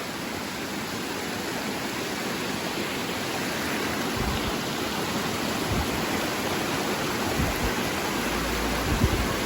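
Mountain waterfall rushing steadily over rocks, heard up close. A few low thumps come through from about four seconds in.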